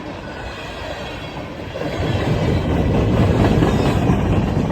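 Long freight train passing, the steady noise of its cars and wheels on the rails, growing louder about two seconds in.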